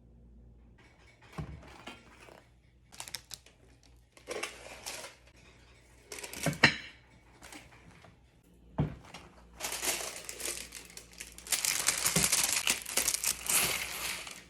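Paper crinkling and rustling as it is handled, with a single sharp knock about halfway through. The crinkling is loudest and most continuous over the last few seconds.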